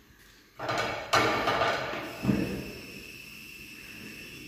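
Kitchen handling sounds while making roti by hand: a few sharp knocks and thuds, the loudest a little over a second in, followed by a steady faint hiss.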